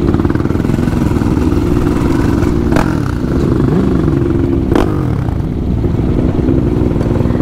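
Motorcycle engine running at a steady pace while riding, heard from the rider's seat. The engine note dips and rises briefly near the middle, and there are two sharp knocks, about three and five seconds in.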